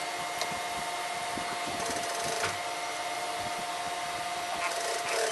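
Industrial sewing machine running with a steady motor hum and a constant whine, with soft irregular knocks underneath, as it stitches a metal zipper and fly placket onto denim with a zipper foot.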